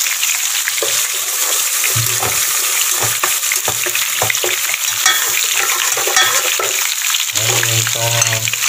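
Sauce frying and sizzling in a metal pot as fish sauce is poured in, with a spatula stirring and scraping the pot in short clicks. Near the end sliced lemongrass is tipped in.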